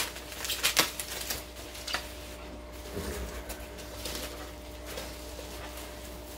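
Packing material (bubble wrap and packing peanuts) rustling and crinkling as items are handled out of a shipping box, busiest in the first second or so, then quieter handling over a low steady hum.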